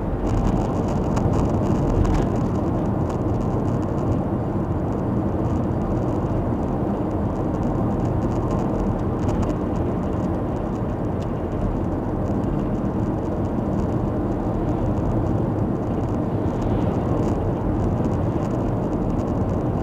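Steady road and engine noise inside a car's cabin cruising at about 90 km/h on an open highway.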